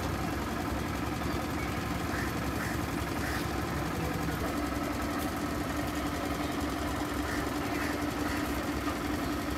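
A steady engine hum with an even low drone, running without change.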